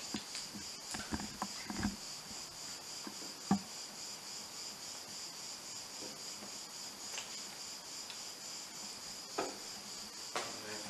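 Crickets chirping in a steady high pulsing trill, with a few short clicks and knocks of a camera and tripod being handled, the sharpest about three and a half seconds in.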